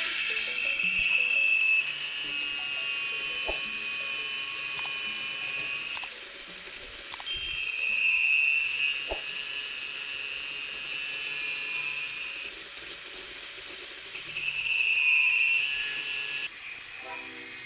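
High-pitched whine of a power tool running in three spells of several seconds each, with short pauses between and a few light clicks.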